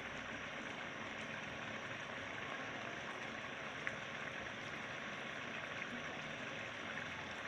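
Chicken karahi's tomato masala sizzling and bubbling in oil in a wok, a steady hiss with one small click about four seconds in; the masala is cooked down and the oil has separated to the top.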